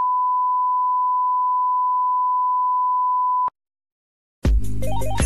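Colour-bar test tone: one steady, high-pitched beep that cuts off suddenly about three and a half seconds in. After a second of silence, music with bell-like notes starts near the end.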